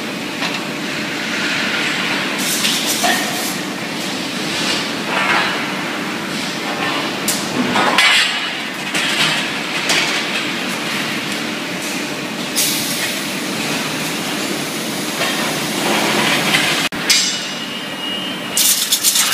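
Steel tubes clanking against each other and the steel transfer tables of an Abbey Etna tube mill's run-out line, over the steady din of the running mill. The clanks come several times, with a cluster of them near the end.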